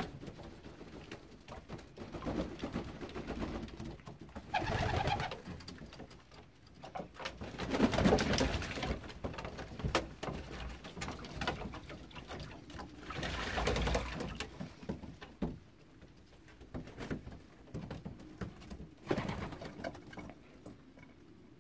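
Young racing pigeons cooing in a small loft, with several bursts of wing-flapping and splashing as they bathe in a shallow crate of water, the loudest about eight seconds in.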